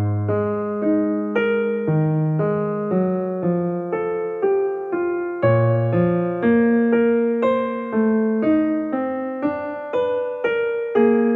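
Background piano music: a gentle melody of evenly spaced notes, about two a second, over held bass notes.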